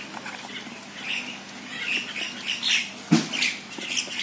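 A hand kneading raw mutton and potato pieces with spice paste and mustard oil on a steel plate, irregular wet squishing and rubbing, with one sharp knock about three seconds in.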